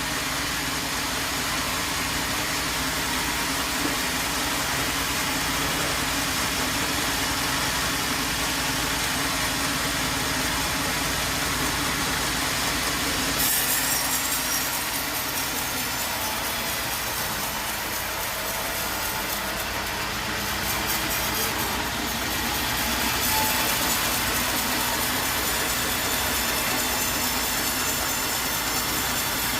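Sawmill saw running and cutting through wood over a steady engine drone; the sound of the cut changes about halfway through.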